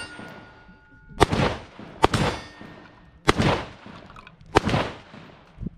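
Diamondback DB15 AR-15 rifle firing 5.56 rounds: four loud shots about a second apart, each with a trailing echo, then a quieter crack near the end.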